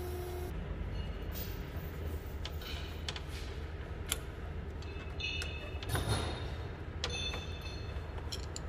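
Metal clinks, scrapes and sharp clicks from hand work on a tractor's rusted mechanical brake linkage, some of them ringing briefly, over a steady low hum.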